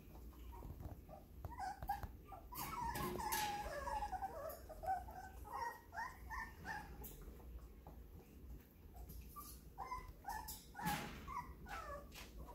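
Young puppies whimpering and yipping in short, high squeaks, in two busy flurries with a lull between.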